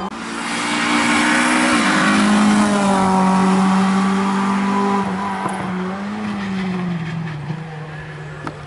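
Renault Clio hillclimb car's engine at high revs, passing at full attack. The pitch drops at a gearshift about two seconds in, then holds steady and fades as the car goes away up the hill.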